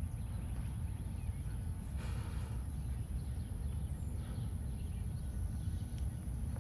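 Outdoor ambience: a steady low rumble of wind on the microphone under a constant high hiss, with faint distant bird calls and a single faint click near the end.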